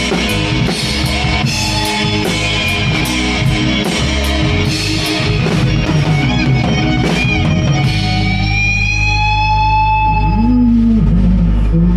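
Live rock band playing, with drum kit strikes and cymbals under electric guitar. About eight seconds in the drums stop, and a guitar holds a long note that slowly bends upward over a sustained low bass note.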